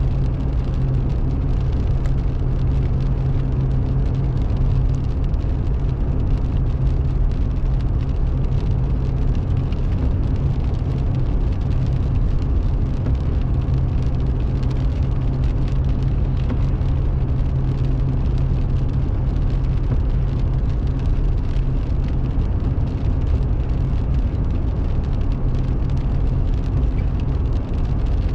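Car cruising on the highway, heard from inside the cabin: a steady low drone of engine and tyre noise that does not change.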